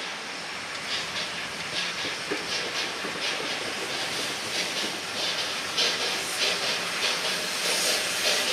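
Steam locomotive 131.060 moving slowly with a repeating hissing exhaust beat of about two to three chuffs a second, growing louder as it comes closer.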